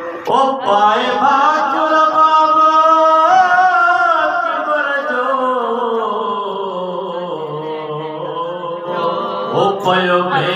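Unaccompanied male voices chanting a noha (Shia lament), led by one singer on a microphone, holding a long drawn-out phrase that slowly falls in pitch before a new line begins near the end.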